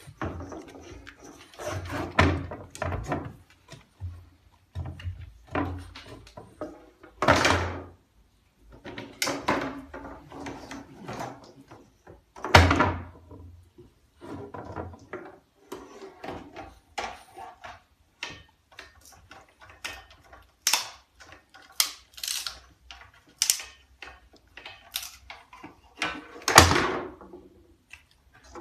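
A long bamboo stick, held crosswise in a puppy's mouth, knocking again and again against a painted wooden doorframe, with lighter clatters and scrapes of the stick on bare wooden floorboards in between. Three knocks are much louder than the rest, the last one near the end.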